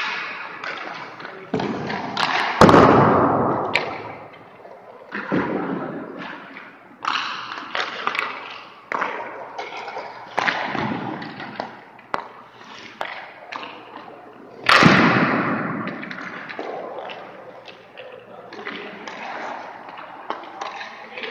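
Ice hockey session sounds: pucks striking goalie pads, sticks and boards, and skates scraping the ice. They come as a steady run of sudden thuds and scrapes, each fading away over up to a second, with the two loudest about two and a half seconds in and about two-thirds of the way through.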